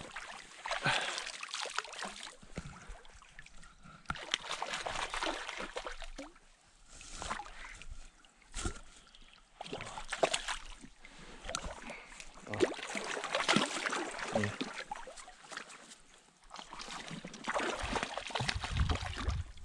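Shallow lake water sloshing and splashing in irregular bursts, with a splash at the water's edge near the end from a hooked trout being brought in to the bank.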